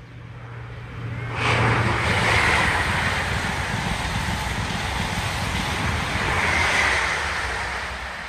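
InterCity 125 high-speed diesel train (Class 43 power cars with Mark 3 coaches) passing at speed. A low hum grows as it approaches, then from about a second and a half in there is a loud steady rush of wheels and air. The rush eases off near the end as the train recedes.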